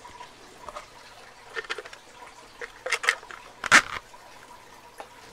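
Small clear plastic case of TSA luggage-lock keys being handled: a scattering of light clicks and rattles, the loudest nearly four seconds in.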